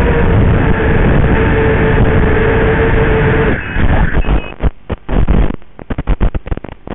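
Five-inch FPV racing quadcopter's brushless motors and props whining at a steady pitch as it flies. A little over three seconds in the whine cuts off as the quad crashes into tall grass, followed by irregular knocks, a couple of short beeps and a run of small clicks and rustles as grass strikes the frame and camera.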